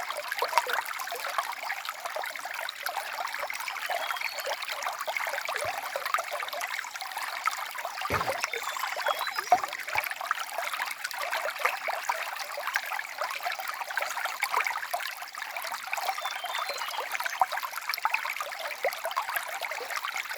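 Small stream of water trickling and babbling steadily, with a brief deeper gurgle about eight seconds in.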